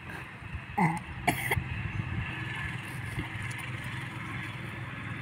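Low, steady hum of an engine running. About a second in comes a short falling voice-like sound, then a brief cough-like burst.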